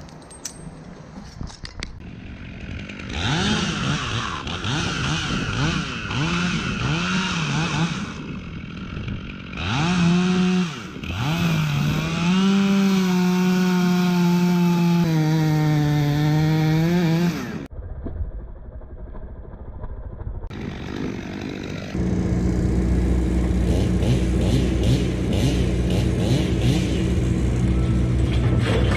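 Chainsaw revving up and down while cutting, then held at high revs for several seconds before it stops about 17 seconds in. From about 22 seconds a different engine runs steadily at a low, even pitch.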